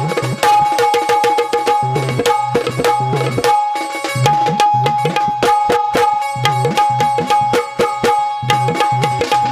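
Instrumental music in an Indian folk-devotional style: rapid hand-drum strokes in a driving rhythm under a repeating melody line, with no voice.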